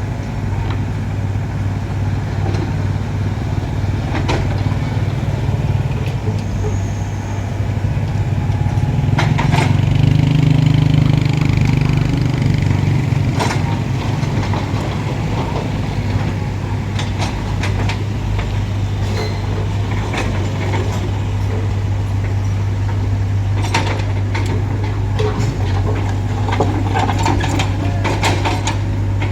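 Diesel engine of a Doosan crawler excavator running steadily. It works harder for a few seconds about ten seconds in. Scattered clanks and knocks come through, several of them near the end.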